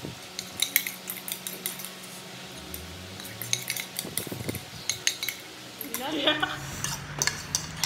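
Spoons clinking and scraping against bowls, many quick sharp clinks, as the last of the ramen is eaten straight from the bowls.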